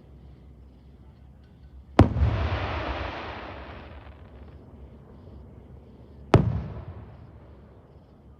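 Two fireworks bangs about four seconds apart, the first followed by a noisy tail that dies away over about two seconds.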